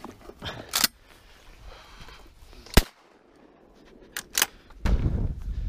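A single sharp shotgun report about three seconds in, among scattered clicks and knocks of handling in the brush. From near the end, wind buffets the microphone in a steady rush.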